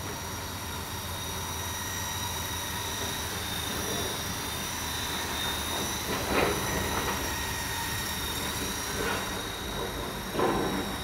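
E-Sky Lama V4 coaxial RC helicopter flying, its electric motors and rotors giving a steady high whine over a whirring hiss, with two brief louder swells about six seconds in and near the end.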